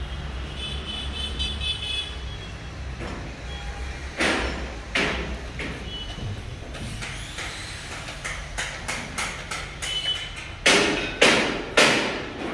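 Construction work in a large room: a steady low hum with scattered bangs, two sharp ones about four and five seconds in, then three loud ones in quick succession near the end.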